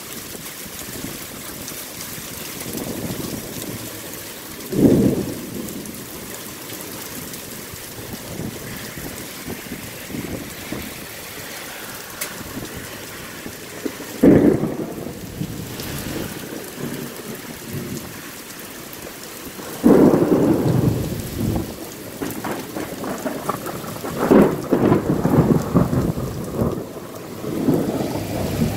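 Heavy rain falling steadily in a thunderstorm. Sudden claps of thunder come about five and fourteen seconds in, then longer rumbles of thunder follow one after another from about twenty seconds in until near the end.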